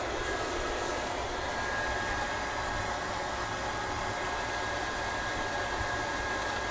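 Steady whooshing mechanical hum, like a running blower or machine, with a faint high steady whine joining about a second and a half in.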